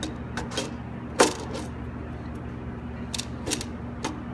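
Scattered metallic clicks and clinks of a wrench working the stainless-steel tube fittings on a solenoid valve's lines as they are undone, the sharpest about a second in. A steady low hum runs underneath.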